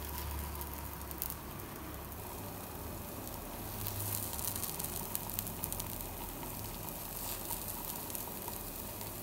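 Jackfruit appams frying in ghee in a paniyaram pan, just turned to cook their second side: a steady soft sizzle with small crackles, busier about four to six seconds in.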